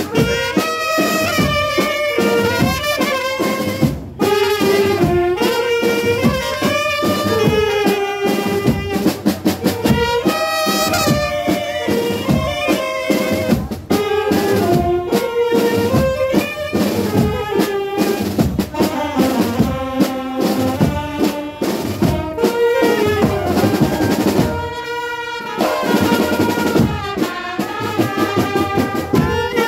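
Brass band playing a tune, horns carrying a moving melody over steady, driving drumbeats.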